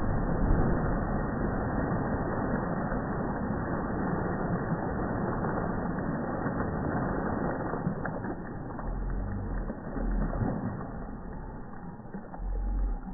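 Slowed-down, pitched-down sound of a jump into a swimming pool: a long rushing wash of churning water that thins out after about eight seconds, with a few low rumbles near the end.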